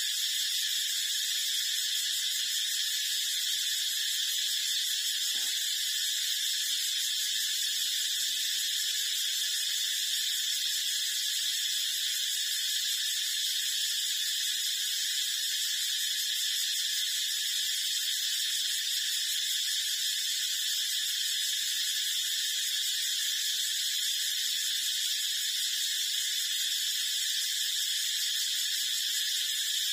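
A steady, unchanging high-pitched hiss, with one faint click about five seconds in.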